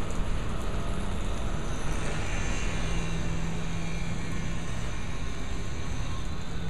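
Steady drone of a demolition excavator's diesel engine running, with a low rumble and a steady hum that grows stronger about two seconds in.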